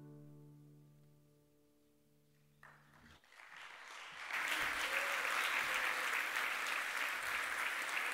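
The last chord on a classical guitar and an acoustic guitar rings out and dies away. After a brief hush, a small audience starts applauding about three seconds in, building to steady clapping.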